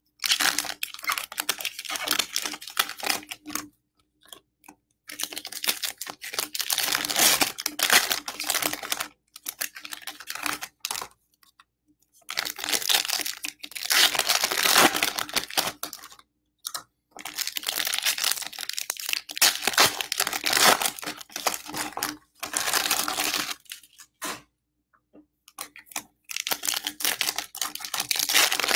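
Baseball card pack wrappers being torn open and crinkled, in repeated bouts of a few seconds with short pauses between.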